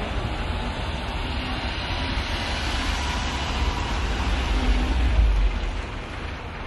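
JAC Sunray van driving slowly past at close range: a low engine and tyre rumble that grows to its loudest about five seconds in as the van draws alongside, then eases off.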